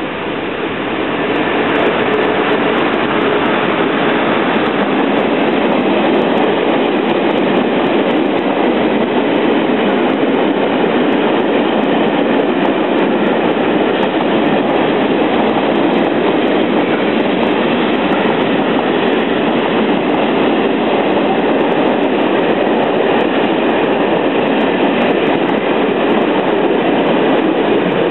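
Empty train of open freight wagons passing close by: steady, loud rolling noise of steel wheels on the rails, building up over the first couple of seconds and then holding.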